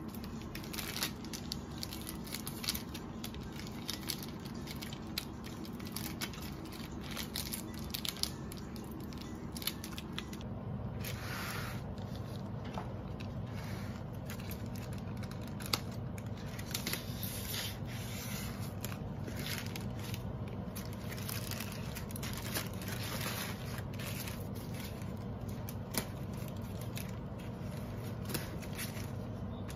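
Scissors snipping through a plastic mailer bag and parcel tape, with the plastic crinkling and rustling in quick, irregular strokes. Before that, light clicks and taps of pens being handled on a desk.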